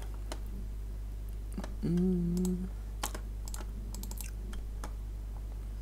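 Scattered clicks of a computer mouse and keys, some in quick pairs, with a short hummed "mm" about two seconds in. A steady low electrical hum runs underneath.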